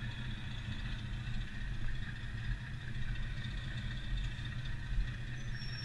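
Electric go-kart rolling out from the pits onto an indoor track: a steady low hum with rumble from the track surface, and a brief high whine near the end.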